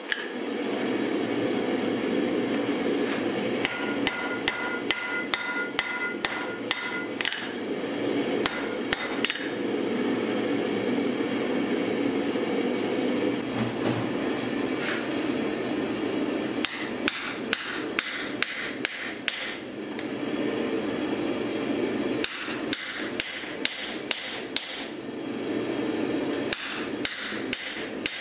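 Hand hammer striking red-hot axe steel on an anvil in runs of quick ringing blows with pauses between. Near the end the hammer drives a punch into the hot steel. A steady rushing noise runs underneath.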